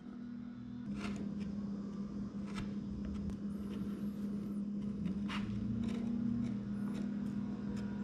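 A bench chisel pushed by hand, paring the end wall of a dado in a wooden board: a few short scraping cuts, clearest about a second in and again past the middle. A steady low hum runs underneath.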